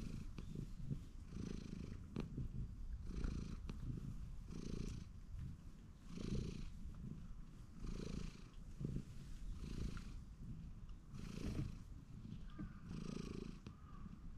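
Orange-and-white cat purring steadily close by while being stroked on the head, the purr swelling and easing with each breath about every second and a half.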